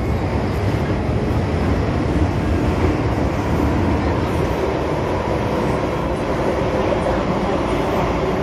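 MTR Tsuen Wan Line M-Train running along the line: a steady rumble of wheels on rail and traction noise, with a faint steady whine over it.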